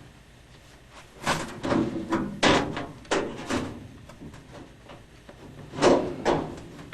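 A series of irregular knocks and clanks, about seven, some with a short ring, from hands-on work fitting a new oil furnace.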